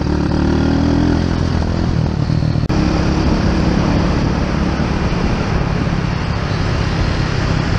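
Small motorbike engine running steadily under way, with a constant rush of wind and road noise. A sudden break about two and a half seconds in, after which the engine and road noise carry on.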